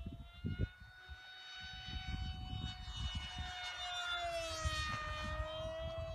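Motor and propeller of a small radio-controlled plane whining steadily in flight, its pitch shifting and dipping about four to five seconds in. Wind gusts rumble on the microphone.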